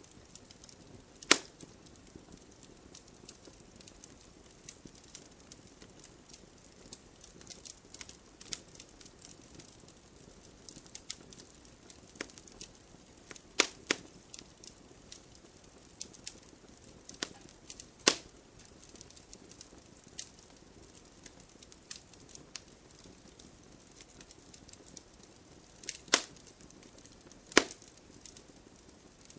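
Irregular sharp clicks and snaps over a low background: many faint ticks, with a few louder cracks standing out, two of them close together about halfway through and two more near the end.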